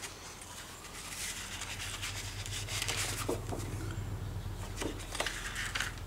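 Rustling and rubbing of a large sheet of photo paper being handled and slid into position over a self-adhesive mounting board, in several short scratchy bursts. A low steady hum sits underneath from about a second in.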